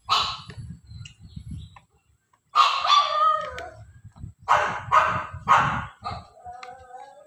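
A dog barking repeatedly, in short runs of loud barks, with a longer drawn-out call near the end.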